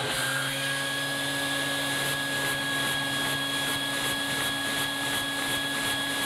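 LEGO V-twin pushrod vacuum engine running on vacuum-cleaner suction: the vacuum's steady whine, with the engine's even rhythmic pulsing of about three beats a second setting in about a second and a half in. It runs okay.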